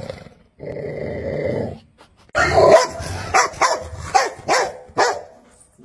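Dog growling steadily for about a second, then letting out a rapid string of sharp barks and snarls, about eight in three seconds, as it lunges and snaps at an object held out to it.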